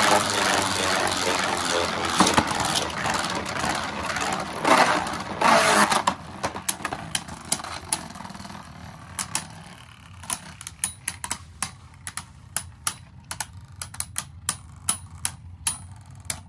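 Beyblade spinning tops whirring and scraping across a plastic stadium floor, loud and dense for about the first six seconds. Then the spinning goes quieter and sharp clicks come about once or twice a second as the two tops knock against each other.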